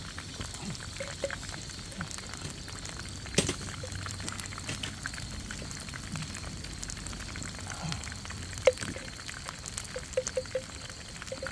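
Shrimp tempura frying in a pot of hot oil, bubbling and crackling steadily. Two sharp clicks stand out, about three and a half seconds in and again near nine seconds.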